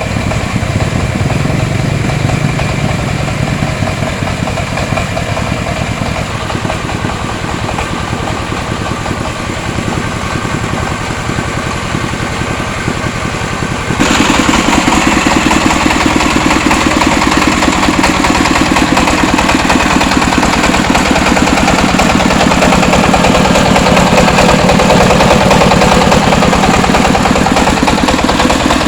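Engine of a three-wheeled mobile rice huller running steadily with a rapid, even beat, becoming suddenly louder and fuller about halfway through.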